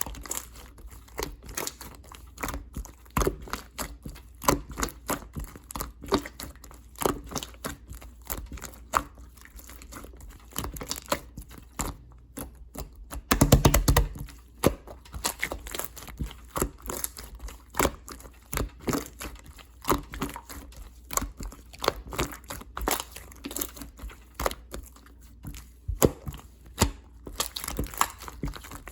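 Clear slime being squished, pressed and stretched by hand, giving many small sticky pops and crackling clicks at an uneven pace. About halfway through comes a quick run of rapid pops, the loudest moment.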